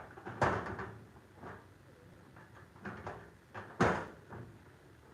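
Metal knocks and clunks of garage door lock hardware being fitted and lined up against the door section: two sharp knocks, about half a second in and near four seconds, with lighter taps between.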